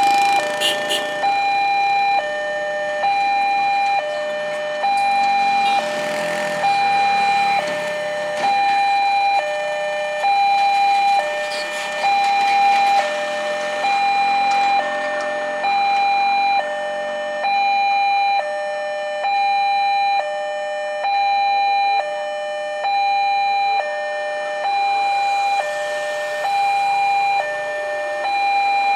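Electronic two-tone warning signal of a LEN railway level crossing, alternating evenly between a higher and a lower tone, about one pair every two seconds: the crossing is warning of an approaching train. A passing vehicle's noise swells briefly about six to eight seconds in.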